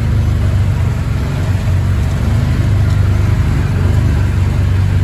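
Side-by-side UTV engine droning steadily at a low cruising speed, heard from on board while driving a rough dirt trail.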